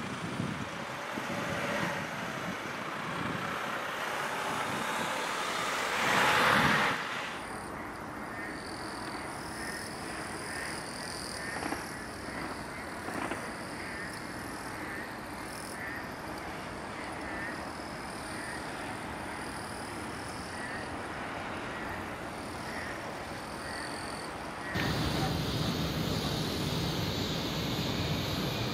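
Outdoor ambience near an elevated guideway, cut together from several recordings: first a rushing noise that swells loudest about six seconds in; then a quieter stretch with a high chirp repeated about once a second; then a louder low road-traffic rumble from about 25 seconds in.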